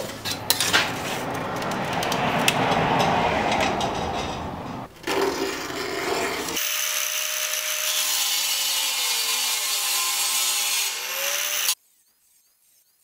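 A steady scraping, rubbing noise, then, about six and a half seconds in, an angle grinder with a thin cutoff disc cutting through a mild steel strip: a hiss with a motor whine that wavers and glides as the disc loads up. It stops abruptly about a second before the end.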